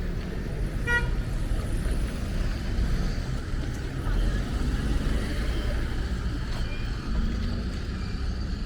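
Steady rumble of street traffic, with a short horn toot about a second in.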